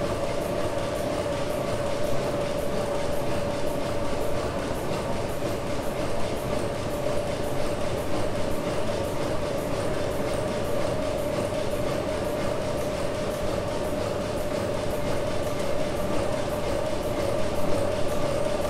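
1904 Sulzer tandem-compound steam engine running steadily, driving its flywheel generator: an even mechanical clatter with regular fast ticking and a steady whine. It is running lightly loaded, powering only a few lamps at about 30 kW.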